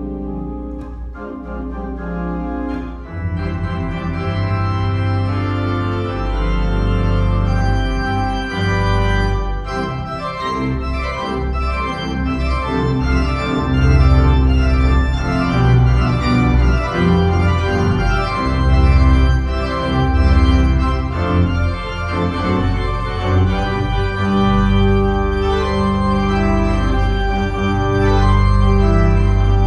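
Pipe organ playing sustained chords, with deep pedal bass notes coming in about three seconds in and the full sound building louder.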